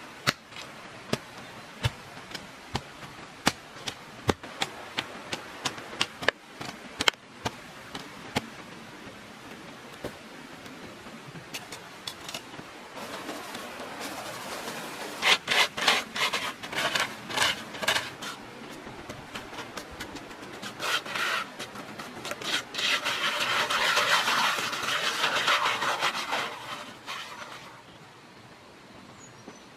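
Hand work on wood or earth: a string of sharp knocks, then quick rasping strokes, then several seconds of steady scraping that stops near the end.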